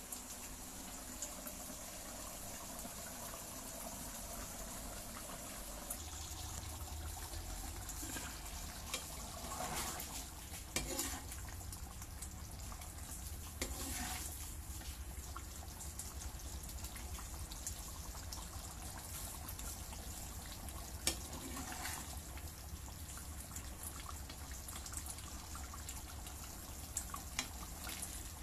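Pork for dinuguan simmering in liquid in a nonstick wok, bubbling steadily, with a spatula stirring and knocking against the pan a few times.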